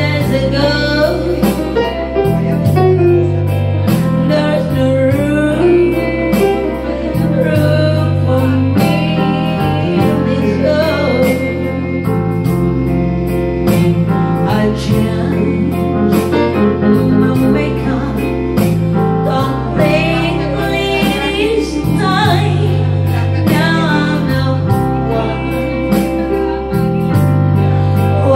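A woman singing into a microphone over instrumental accompaniment with a bass line that changes note about once a second.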